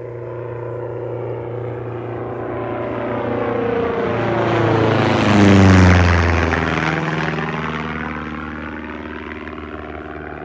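Rans S21 bush plane's engine and propeller passing low overhead. The drone grows louder, drops in pitch as the plane goes by about halfway through, then fades away.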